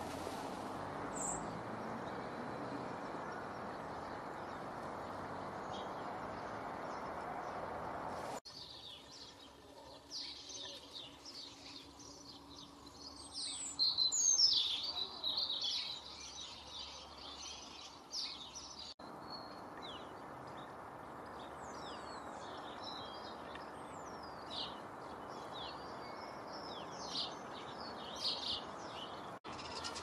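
Garden birds chirping and singing in short, high phrases and whistles, busiest and loudest a little before the middle. A steady low background rush lies under the calls except for a stretch in the middle where it drops away.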